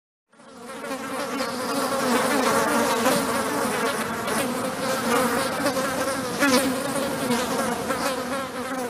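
Many flies buzzing in a dense swarm, fading in from silence a moment in and then holding steady: a recorded insect-swarm intro to a metal track.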